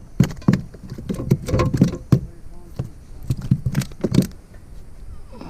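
Irregular knocks, clicks and rattles of fishing tackle being handled on a kayak while line is worked free of a lure's treble hooks. They thin out in the last second or so.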